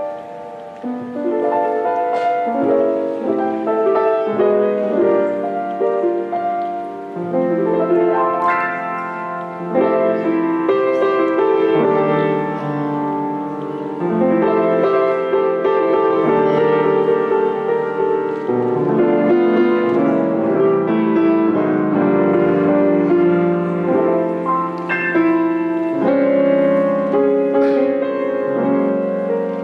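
Slow instrumental keyboard music, with held chords that change every second or two.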